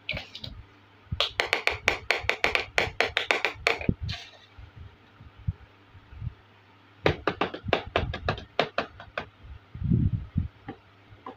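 Small hard-plastic toy kitchen pieces clicking and tapping rapidly as they are handled, in two quick runs of clicks, then a dull thud about ten seconds in as a piece is set down on the table.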